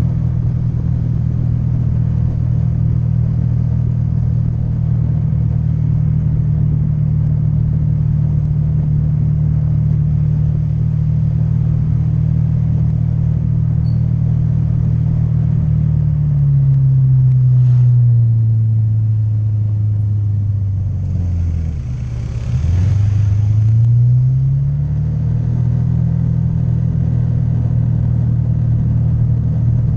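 Honda Vario 150 scooter's single-cylinder engine running steadily under way; a bit over halfway through it slows, dropping in pitch, then speeds up again with the pitch rising back. A rushing noise comes in around the slowdown.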